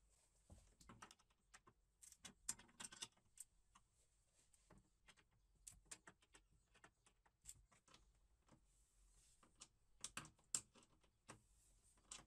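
Light metal clicks and taps from a ratcheting combination wrench turning a bolt and from steel hardware being handled, coming in short irregular clusters.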